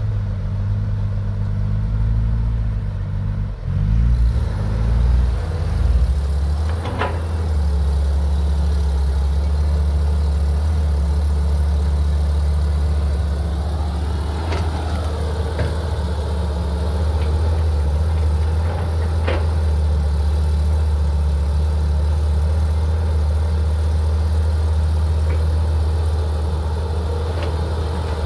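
Diesel engines of a Caterpillar 320 tracked excavator and a dump truck running with a steady low drone, the note shifting and rising in the first several seconds as the machines move. A few sharp knocks come through while the excavator loads soil into the truck.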